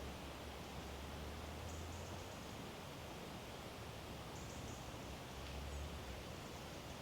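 Quiet woodland ambience: a steady soft hiss with a low rumble underneath, and faint high chirps twice, about two seconds in and again near five seconds.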